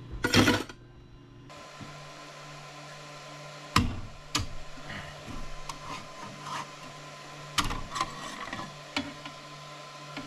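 QIDI Tech 3D printer running with a steady hum while a freshly printed plastic part is pried off its build plate with a scraper and lifted out, giving several sharp clicks and knocks. A brief loud rustle comes just after the start.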